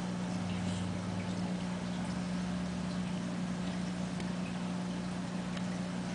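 A steady low hum with a few faint scattered ticks over it.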